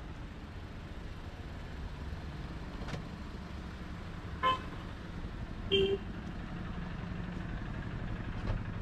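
Road traffic: a steady low rumble of vehicles, with two short horn toots about four and a half and six seconds in.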